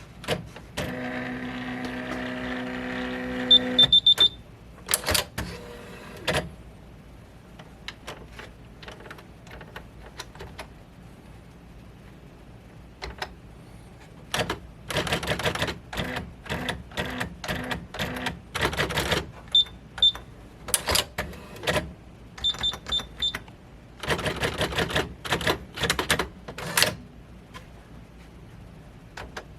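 Brother AX-15m electronic typewriter. A steady motor hum runs for about three seconds near the start, ending with a few short high beeps. Then come scattered clicks and several long runs of rapid mechanical clicks as it types, with brief beeps between runs.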